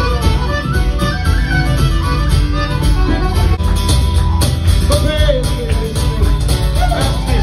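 Live traditional Irish session music: a whistle leads a lively tune over instrumental accompaniment.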